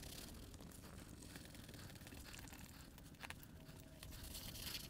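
Near-quiet room tone with a low steady hum and faint rustling and handling noise, with one light click a little past three seconds in.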